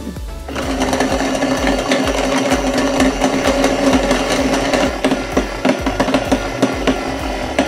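Just Like Home toy food processor running after its button is pressed: a steady buzzing whir with a fast rattle, starting about half a second in.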